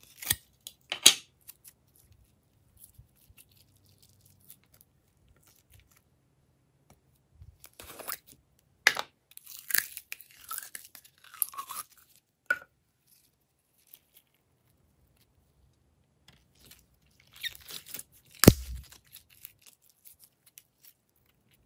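Glossy slime being squeezed and pressed out of small plastic cups: scattered wet crackles and squishes in a few clusters with quiet gaps between, and one sharp pop a little after the middle of the last cluster.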